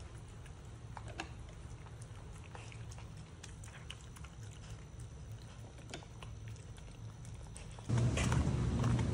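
A dog eating from its bowl: a run of small clicks and crunches of chewing, over a low steady hum. About eight seconds in this gives way suddenly to louder outdoor sound of footsteps in Crocs on brick paving.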